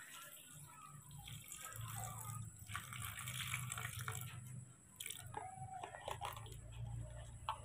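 Milk pouring from a small plastic cup into a plastic blender jar over chopped mango, a faint splashing trickle. A few light clicks and knocks follow in the second half.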